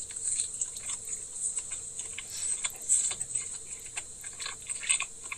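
A man chewing a mouthful of pulled pork sandwich, heard as irregular soft clicks and smacks of the mouth, several a second.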